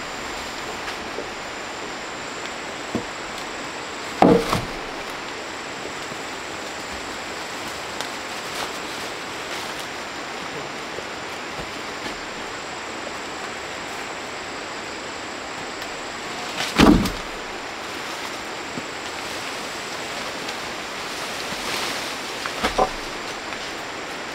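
Sawn wooden planks clunking against a pile of planks as they are set down, about three loud knocks spread through the stretch, over a steady rushing background noise.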